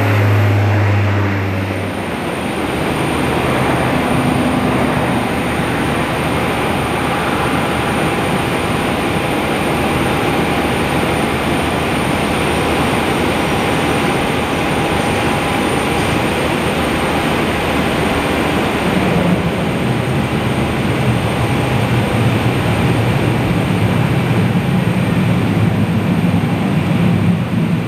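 Bombardier DHC8-Q400 turboprop noise. A low propeller drone from a climbing Q400 stops about two seconds in and gives way to a steady broad rush. From about two-thirds of the way through, a deeper propeller drone builds as a Q400 rolls down the runway after landing.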